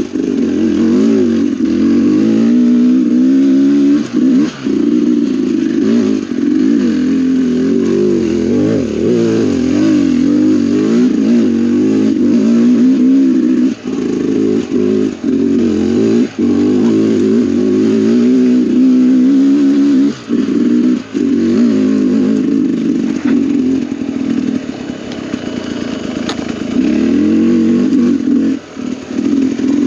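Dirt bike engine running under load on a rocky trail, its pitch rising and falling with the throttle throughout. The note drops briefly several times as the throttle is rolled off, and it runs quieter for a couple of seconds a little past the middle.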